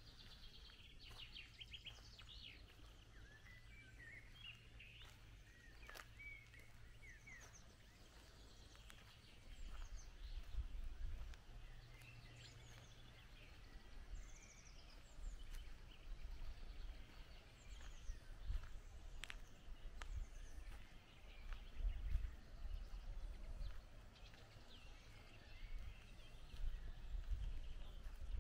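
Small birds chirping and singing, with a low rumble that swells and fades underneath from about a third of the way in.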